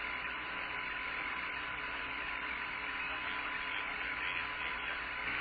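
Steady radio hiss on the Apollo 17 air-to-ground voice loop between transmissions, with a low hum and a faint steady tone running through it.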